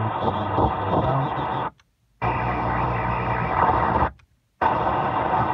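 Car AM radio being stepped up the dial through 790, 800 and 810 kHz: each frequency gives about two seconds of hissy static with faint signals underneath, and the radio mutes for about half a second between steps.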